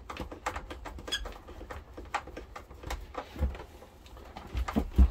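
Irregular small clicks and scratches of a screwdriver and cables being handled against the back of a video recorder's metal case. A few dull knocks come near the end, the loudest about five seconds in.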